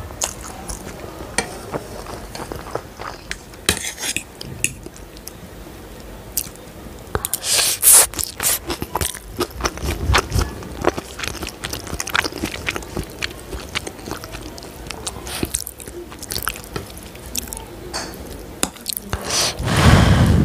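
Close-miked chewing of stir-fried instant noodles, with many wet mouth clicks and smacks. A louder slurp comes near the end as another forkful is taken.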